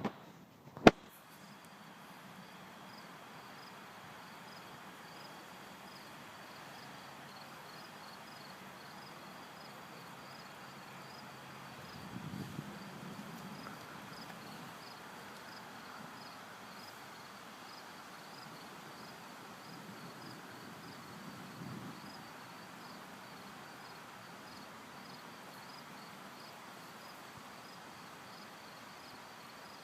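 Insects chirping in a steady, rhythmic high-pitched pulse over faint outdoor background noise. A sharp click sounds about a second in, and a faint low rumble comes twice, around the middle and again later.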